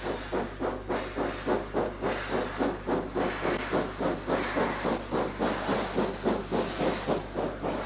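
South African Railways class 25NC 4-8-4 steam locomotive No. 3420 working hard with a train, its exhaust beating evenly about three times a second, with steam hissing from its open cylinder drain cocks.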